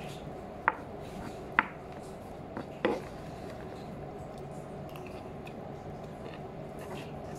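Metal cutlery clicking against the plate three times in the first three seconds while noodles are scooped up, the third click a little longer, over a steady room hum.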